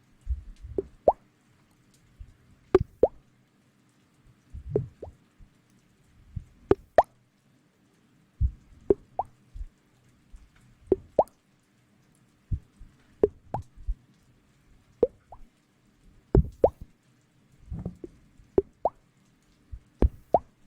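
Soft wet plops, one or two at a time every second or so, each sweeping quickly upward in pitch, over a faint steady hum.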